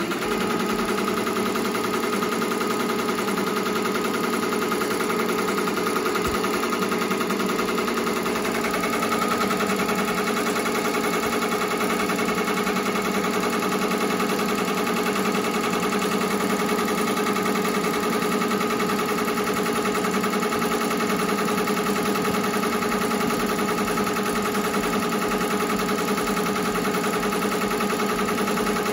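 Ricoma 2002-8S two-head embroidery machine running steadily as it stitches a design, with a fast, even rattle of needle strokes; the pitch shifts slightly about nine seconds in.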